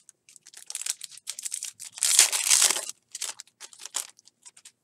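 A 2018 Donruss baseball foil card pack being torn open, its wrapper crackling and crinkling. The loudest tearing comes about two seconds in, followed by scattered crinkles as the cards come out.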